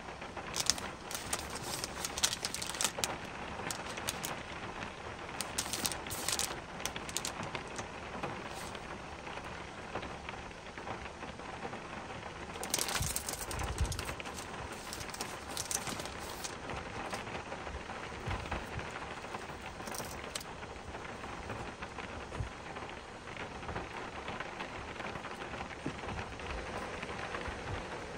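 Steady rain falling, with louder spells of drops striking close by a few times. The strongest spell comes about halfway through, with a low rumble under it.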